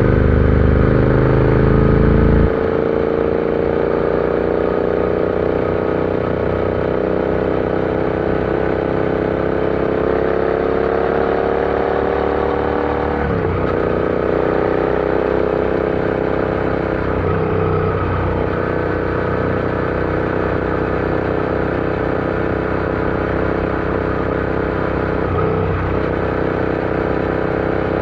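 Royal Enfield Interceptor 650 parallel-twin engine running under way, its note rising slowly, with brief dips in pitch about halfway through and twice more later. A heavy low rumble underneath cuts off suddenly about two and a half seconds in.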